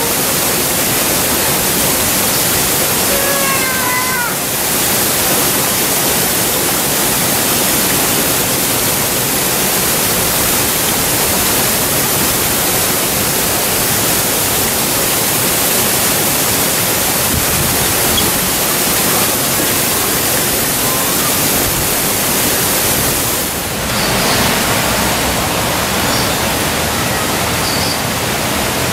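Steady, loud rush of flowing water. A short whistled bird call about three to four seconds in.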